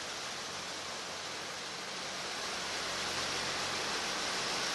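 Steady, even background hiss of the hall's ambience, with a faint low hum and no distinct events.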